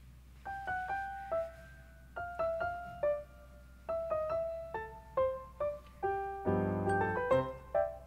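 Light, playful background music: short piano notes pick out a bouncy melody starting about half a second in, with a fuller chord about six and a half seconds in.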